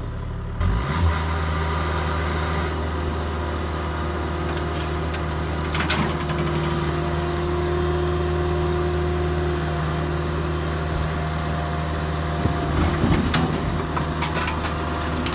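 Mini excavator's diesel engine running steadily under load, growing louder about a second in. A few metal clanks and knocks come through around six seconds in and again near the end.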